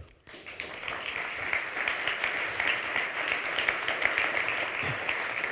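Audience applauding, beginning suddenly just after the start and holding steady as a dense patter of many claps.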